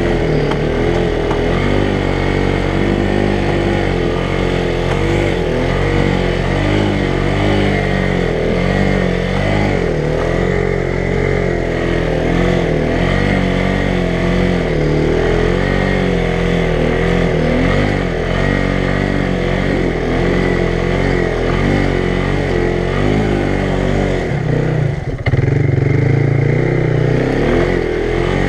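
ATV engine running as the quad is ridden along a muddy trail, its note rising and falling with the throttle. Near the end it dips briefly, then runs louder for a couple of seconds.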